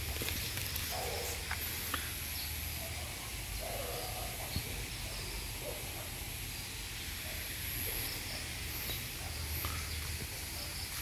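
Rural outdoor ambience: a steady high hiss with a thin high tone that comes and goes, under a low rumble, with a few short bird calls about a second and about four seconds in.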